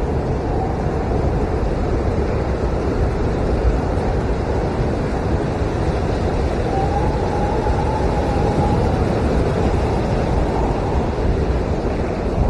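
Blizzard wind blowing hard and steadily, a deep rushing noise, with a faint wavering howl rising over it for a few seconds in the middle.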